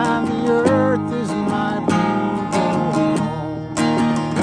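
A man singing held, gliding notes over a strummed acoustic guitar.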